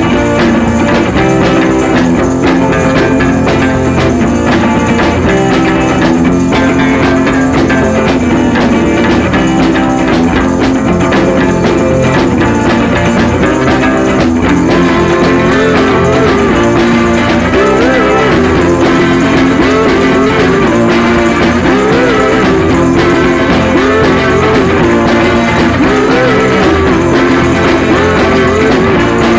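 Background rock music with guitar, loud and continuous, with what may be a sung or lead melody line in the second half.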